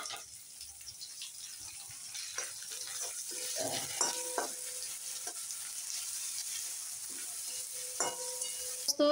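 Ginger-garlic paste and green chillies sizzling in hot oil in a metal kadhai, stirred with a flat spatula that scrapes and knocks against the pan throughout.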